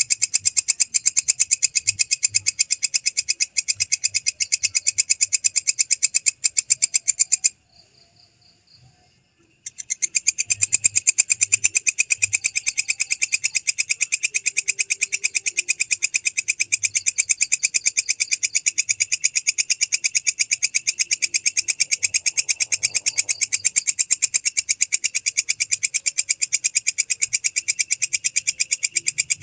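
Walang kecek katydid (bush cricket) calling: a fast, even train of sharp, high-pitched chirps, breaking off about seven and a half seconds in and starting again two seconds later.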